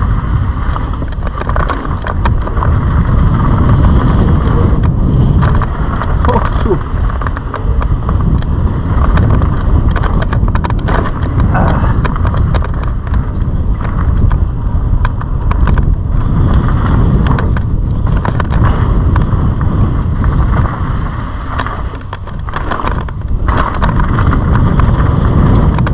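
Wind buffeting a helmet-mounted camera while a mountain bike is ridden along a dirt trail, its tyres rumbling and rattling over the bumps.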